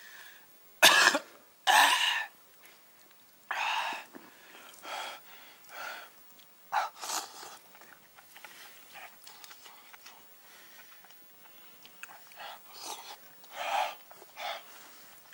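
A man's sharp, breathy huffs and puffs through an open mouth while eating scalding hot food, airing out his mouth. Three loud huffs come in the first four seconds, then softer puffs and blowing, with a few more strong ones near the end.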